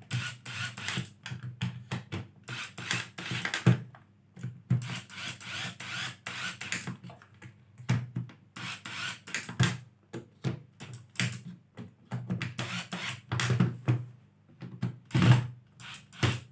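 Hoki 802 electric screwdriver driving screws fully tight, its motor running in repeated short bursts with scraping and clicking.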